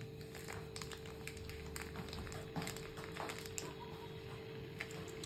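Faint crinkling and clicking of a plastic sachet of paste being squeezed out by hand, with scattered small ticks, over a steady low hum.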